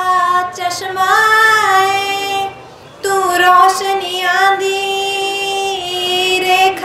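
A young woman singing a Sikh devotional song solo into a microphone, holding long notes, with a short break for breath about two and a half seconds in.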